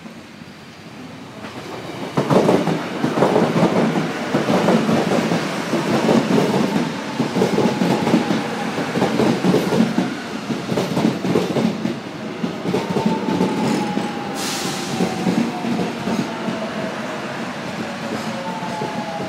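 Korail 341000-series electric multiple unit arriving along the platform: wheels clattering over the rail joints, loud from about two seconds in, with a whine that falls in pitch as the train brakes and slows. A short hiss comes about fourteen seconds in.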